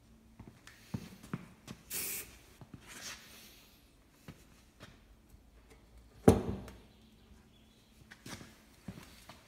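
Short hisses from an aerosol spray paint can, one about two seconds in and a weaker one a second later, among light clicks and taps. A single loud knock sounds about six seconds in.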